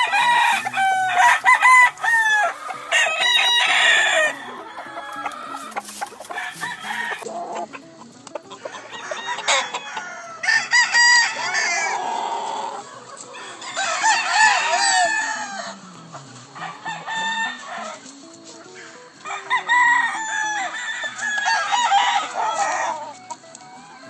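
Gamefowl roosters crowing several times, each crow a loud, drawn-out call, with quieter stretches between the crows.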